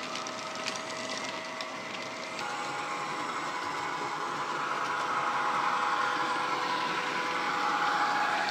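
Diesel locomotive engine sound played by a model's Loksound 5 DCC sound decoder through a small sugarcube speaker. It runs steadily with a hum whose pitch steps up a little about two seconds in, then grows louder as the model approaches. Light clicking from model wagon wheels on the track comes in the first couple of seconds.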